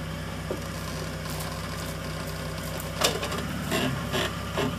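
An off-road 4x4's engine idling at low revs during slow rock crawling. There is a sharp knock about three seconds in and a few smaller knocks near the end.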